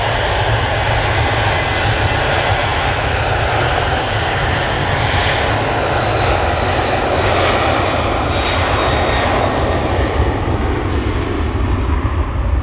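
Boeing 737-800's CFM56 jet engines at high power on the takeoff roll: a loud, steady roar with a deep rumble, a faint whine and some crackle near the middle.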